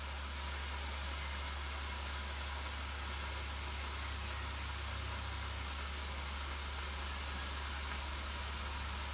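Steaks sizzling steadily between the closed hot plates of a Tefal OptiGrill electric contact grill: an even hiss over a low steady hum.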